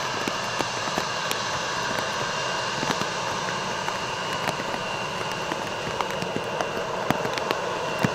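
Steady noise of an Embraer regional jet running on the ground at low power, with a thin high whine held at one pitch and scattered short clicks.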